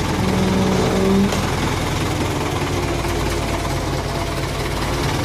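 Forklift engine running steadily at low revs, with a brief louder humming whine laid over it for about a second near the start.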